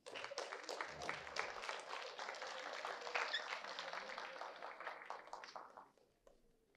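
Audience applauding, starting at once and dying away after about six seconds, with a few last scattered claps.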